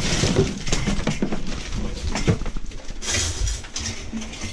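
Handling noise of clutter: plastic rubbish bags rustling, with light knocks and clatter as an electric rice cooker and its cords are handled and moved.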